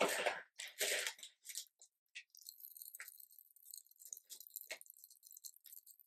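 Popping candy crackling and fizzing in a mouth held close to the microphone: a dense patter of tiny high-pitched pops, starting about two seconds in after a couple of soft breathy mouth sounds.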